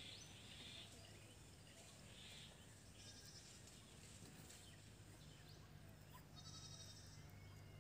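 Faint outdoor ambience: short high animal calls now and then over a low steady hum.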